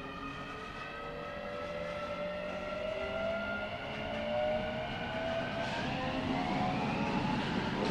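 Keio 9000 series electric train's Hitachi IGBT VVVF inverter and traction motors whining as it accelerates: several tones climb steadily in pitch, and about six seconds in the pattern shifts and a new set of tones starts rising.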